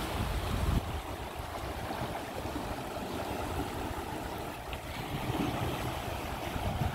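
Turbulent floodwater rushing and churning out of a sluice-gate outflow: a steady rush of water, with a stronger low rumble for about the first second.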